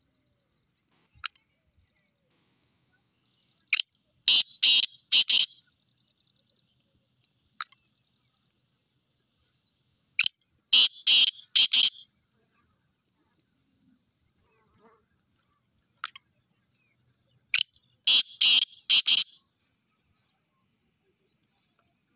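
Black francolin (kala teetar) calling: three loud, harsh calls about seven seconds apart, each a short lead note followed by a quick run of three or four grating notes, with single short notes in between.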